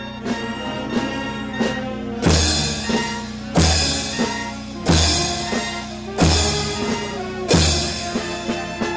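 Marching band of brass and drums playing held chords. From about two seconds in, bass drum and cymbals strike together five times, about every 1.3 seconds, over lighter drum taps.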